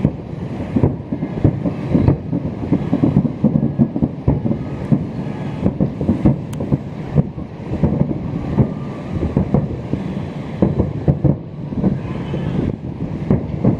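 Fireworks going off in quick succession: a dense, irregular run of bangs and crackles over a continuous low rumble.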